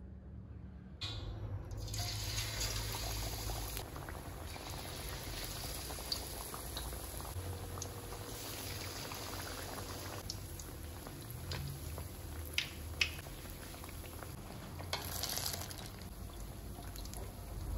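Battered banana fritters deep-frying in hot oil in a wok: a steady sizzle and bubbling that starts about a second in. Two sharp clicks stand out past the middle.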